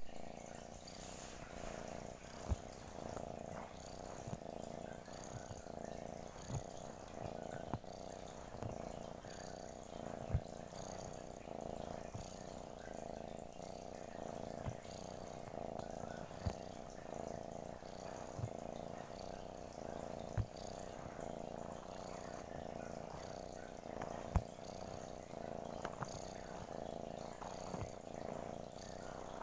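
Domestic cat purring steadily, close up. Short sharp clicks come every few seconds.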